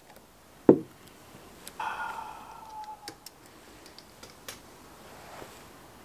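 A single sharp knock, then about a second later a short tone that falls slightly in pitch, with scattered light clicks and ticks around it.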